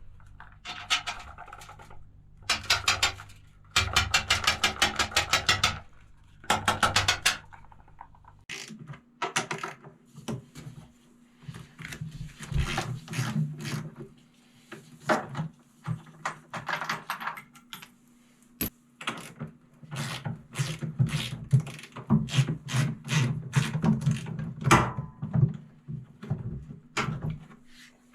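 Metal clattering: several bursts of fast, even clicking early on, then irregular clinks and knocks over a low steady hum.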